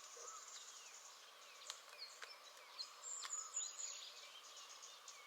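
Quiet outdoor ambience with faint bird chirps and a few faint clicks. A high, thin tone lasts about a second, starting about three seconds in.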